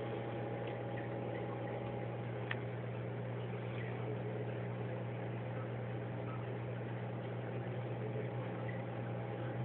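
Steady low mechanical hum of a room's background, with one faint click about two and a half seconds in.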